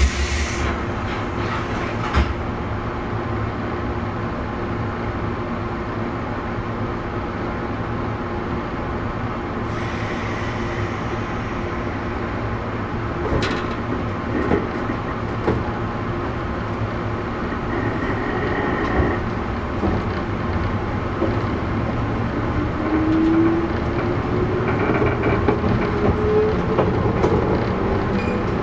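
Running sound inside a JR West 117 series motor car as it pulls away from a station: a steady rumble with occasional rail-joint clicks. From about two-thirds of the way in, a rising whine from the traction motors comes in as the train gathers speed. There are two short hisses, one at the very start and one about ten seconds in.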